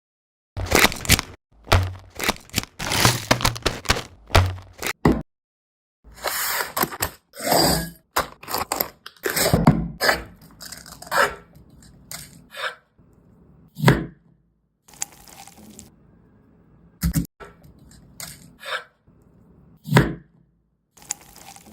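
Irregular knocks, cracks and scrapes of kitchen work, in a quick run over the first ten seconds or so, then single sharp knocks a second or two apart.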